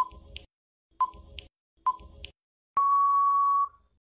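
Quiz countdown timer sound effect: three short beeps about a second apart, then one long steady beep of nearly a second at the same pitch that cuts off sharply, signalling that time is up.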